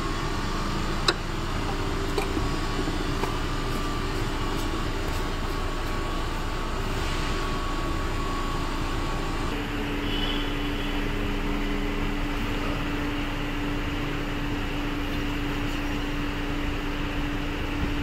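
A steady mechanical hum with a single click about a second in. The hum's tone shifts about halfway through.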